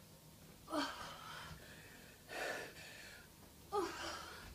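A woman breathing hard and gasping from exertion: three heavy, partly voiced breaths about one and a half seconds apart.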